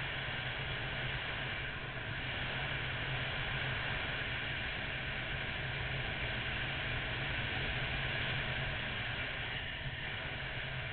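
Steady wind rush over a motorcycle-mounted camera microphone at cruising speed, with the Honda VFR800's V4 engine humming low and steady underneath.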